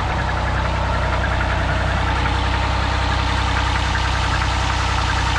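2010 Ford Escape engine idling steadily, just started after a no-start on a battery with more cranking amps. It runs with a knock and doesn't sound good at all.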